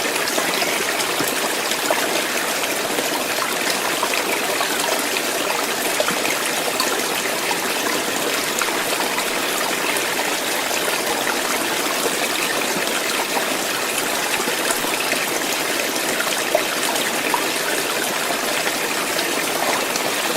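Water running in a stream, a steady bubbling and trickling flow with small splashes.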